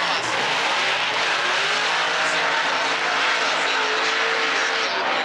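Drift cars running on track: engines held at high revs, their pitch sliding up and down, over a dense steady hiss of sliding, spinning tyres.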